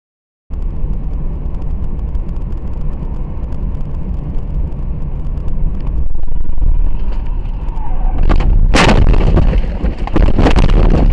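A car driving with a steady low road and engine rumble, then a loud crash impact about nine seconds in, followed by further knocks and clattering.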